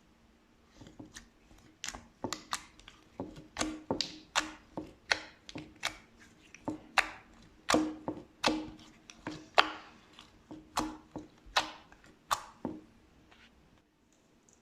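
Slime being squished and pressed by hand, giving a run of sharp wet pops and clicks about two or three a second. It starts about a second in and stops shortly before the end.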